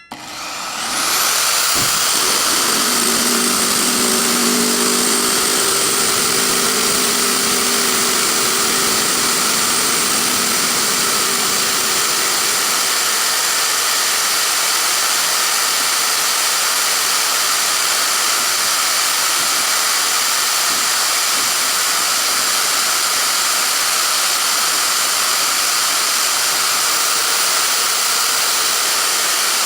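Power drill running continuously at high speed, spinning a screw against an iron bead for friction welding: a steady, hissing whine that builds up over the first second and then holds, with a lower hum underneath for the first several seconds.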